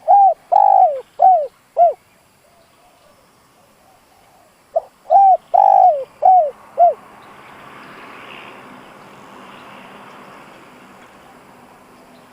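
Spotted dove cooing: two phrases of about five low, arching coos each, the second coming a few seconds after the first. This is the male's territorial song, used here as a decoy call to stir up wild doves. A faint steady rushing noise follows the second phrase.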